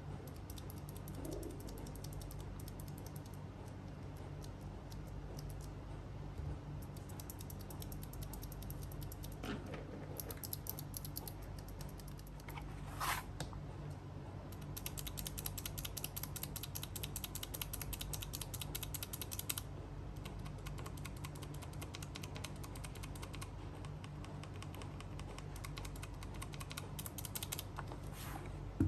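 Typing on a mechanical keyboard fitted with Gateron Blue clicky switches that have been heavily lubricated, so the click is damped. The keystrokes come in quick runs with short pauses, fastest around the middle, over a steady low hum.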